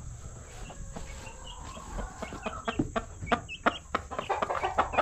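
Chickens clucking: a run of short, quick clucks that starts about two seconds in and grows busier and louder toward the end.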